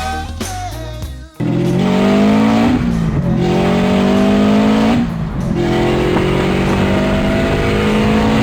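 Subaru STi's turbocharged EJ257 flat-four, fitted with a 44 mm external wastegate venting to atmosphere, accelerating hard through the gears. The engine note rises steadily three times, with a brief drop in revs at each of two upshifts. Intro music plays for the first second or so, then cuts off.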